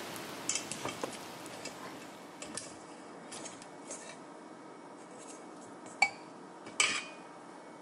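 Bamboo skewers of marinated pork and a silicone basting brush tapping and scraping against a stainless steel mixing bowl: scattered light clicks, with two sharper knocks near the end.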